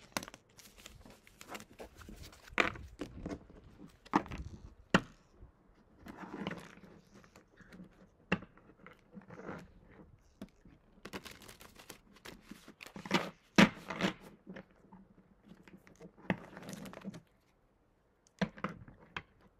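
Tarot cards being gathered and shuffled by hand: irregular rustling, riffling and sharp card clicks.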